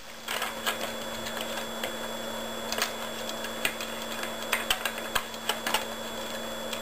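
Irregular light clicks and taps from hands handling the metal and plastic fittings of a homemade pneumatic burst-disk airgun, with a faint steady hum underneath.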